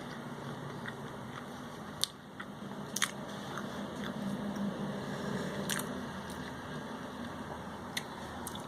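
A person chewing a mouthful of burrito, with a few short sharp clicks over a steady low background hum.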